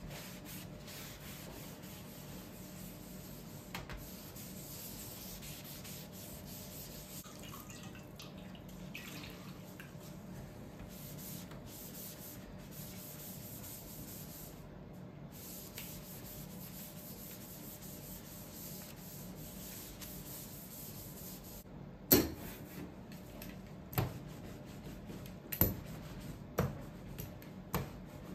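Steady rubbing from hand work on a zinc lithograph plate or its print, then about six sharp knocks in the last few seconds.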